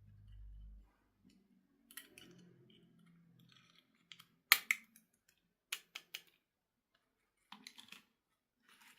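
Hands handling a plastic toy and its packaging: a short low thump at the start, then irregular clicks and faint rustling, with one sharp click about four and a half seconds in.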